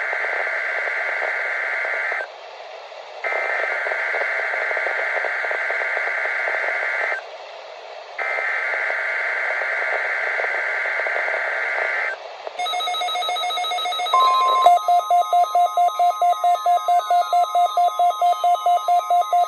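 Emergency Alert System data bursts over weather radio: three harsh, buzzy digital header bursts of about four seconds each, separated by short gaps. About two-thirds of the way in, a short steady alert tone sounds, then a rapidly pulsing electronic alarm tone of about four or five beeps a second takes over until the end.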